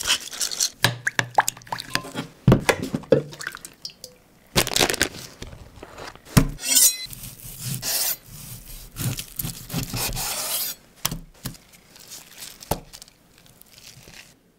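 Food-preparation sounds: a wooden pepper mill grinding over a bowl near the start, then a knife slicing through a block of roast beef in the middle, with scattered clicks and wet sounds.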